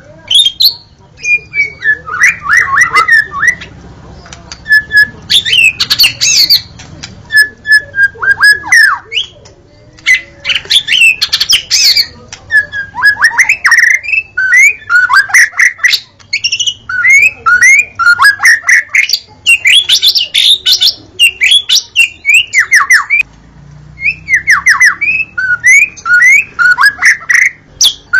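White-rumped shama (murai batu) singing: a loud, rapid run of varied whistled phrases, sweeping notes and sharp calls, broken by a few brief pauses.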